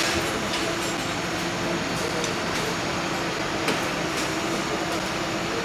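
Steady mechanical drone and hiss with a low, even hum, as of engines or machinery running, with a few faint clicks.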